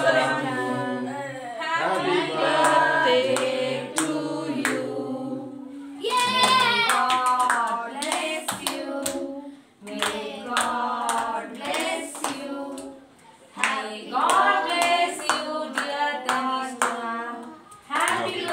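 A family group singing a birthday song together, clapping in time to it, with short breaks between lines.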